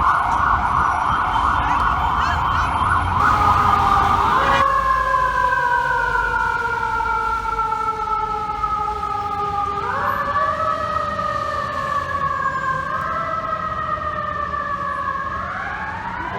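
Fire truck siren in a fast warble for about the first four seconds, then switching to a slow wail whose pitch rises quickly and sinks slowly in long sweeps, over a low engine rumble.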